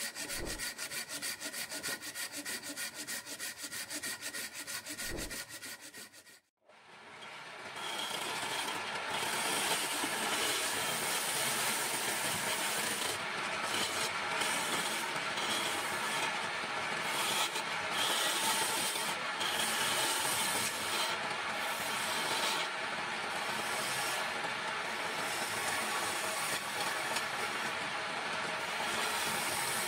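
Walnut wood on an electric wood lathe under a hand-held turning tool. For about six seconds there is a rapid, even rattle. After a short break comes a steady scraping hiss of the tool cutting the spinning, rounded blank, over a steady hum.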